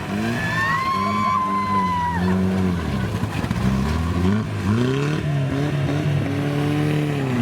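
Off-road jeep engine revving up and down several times under load, with a high held tone in the first two seconds.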